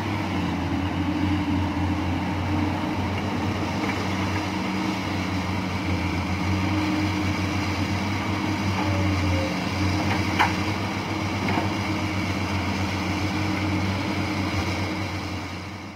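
Diesel engines of Komatsu PC200 hydraulic excavators running steadily while digging, a constant low drone. A single short knock sounds about ten seconds in.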